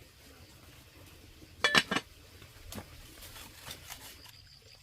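A quick cluster of sharp knocks or clinks, like hard objects struck together, about a second and a half in, then a few fainter taps. Near the end a cricket starts a steady high chirring.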